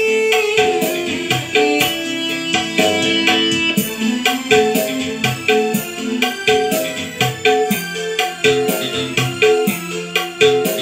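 Recorded music with a steady beat and pitched melody, played from a phone through an Ashley Super-M8 mixer into 12-inch speakers without a subwoofer, with the high, mid and low EQ left flat at 12 o'clock.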